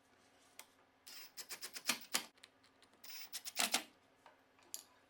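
Rapid mechanical clicking and rattling in two bursts of about a second each, with a few single clicks in between, from small hardware and hand tools being handled.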